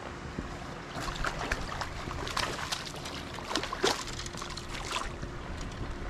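A hooked crappie thrashing at the surface beside a kayak: a quick, irregular run of sharp splashes, mostly in the middle of the clip.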